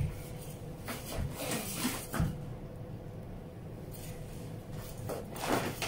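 Household knocks and bumps with rustling between them, from someone rummaging for a different paintbrush: a sharp knock right at the start, two more over the next two seconds, then quieter.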